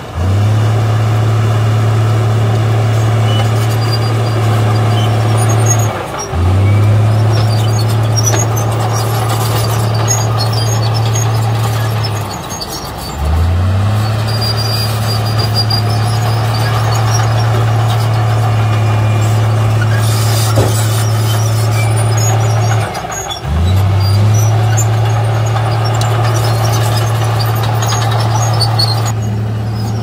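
Heavy diesel engines of dump trucks and a bulldozer running as a steady low drone, which dips and climbs back in pitch about four times.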